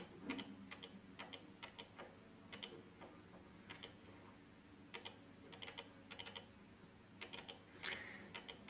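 Faint, irregular clicking at a computer, mouse or keyboard clicks, coming in small clusters every second or so.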